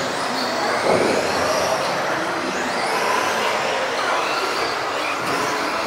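Several electric RC off-road cars racing, their motors whining high and gliding up and down in pitch as they accelerate and brake, over steady tyre noise. A louder knock comes about a second in.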